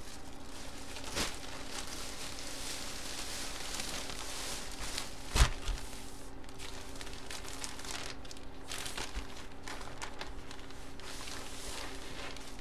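Plastic card packaging crinkling and rustling as trading cards are handled, with a sharp tap about halfway through.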